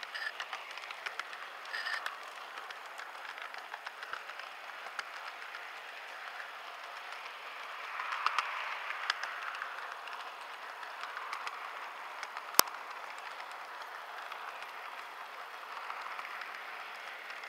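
Model train running along its track, heard close up: a steady rattling whir of wheels and motor dotted with small clicks, with one sharp click about two-thirds of the way through.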